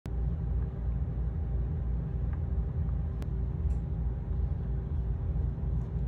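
Steady low background rumble with a faint constant hum, and a sharp click about three seconds in.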